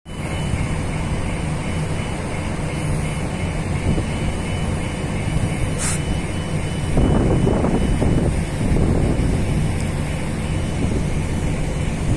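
Car ferry's engines and machinery droning steadily: a low hum with a few faint steady whines above it. Wind rushes over the microphone, strongest about seven seconds in.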